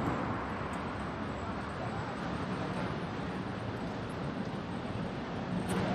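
Steady city street ambience: a constant hum of road traffic, with faint passing voices near the end.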